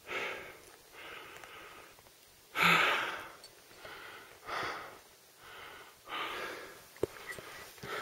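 A hiker breathing hard from exertion on a steep mountain climb: a run of heavy, noisy breaths, the loudest about three seconds in. A few sharp clicks come near the end.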